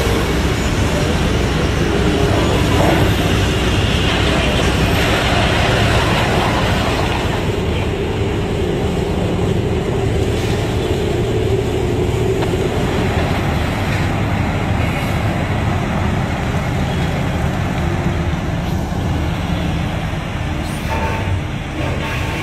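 Heavy mining machinery running steadily: a P&H 4100 XPC electric rope shovel swinging and loading a haul truck, heard as a deep continuous rumble. A mid-pitched drone over the first several seconds fades away.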